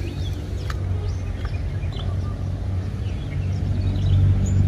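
Outdoor background of birds chirping in short calls over a steady low rumble, with a single light click less than a second in.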